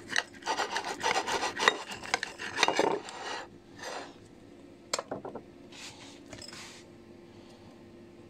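A knife sawing through a piece of smoked salo (cured pork fat) on a plate: quick back-and-forth rasping strokes for about three seconds, then a few lighter scrapes and taps.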